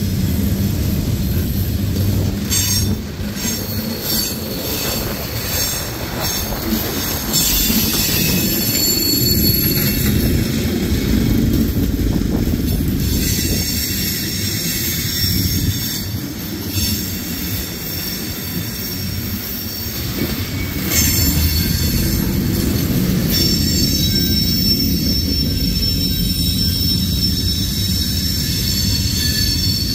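Freight cars of a manifest train rolling past with a steady rumble of wheels on rail. High wheel squeal comes and goes over it, loudest about eight to twelve seconds in and again through the last third.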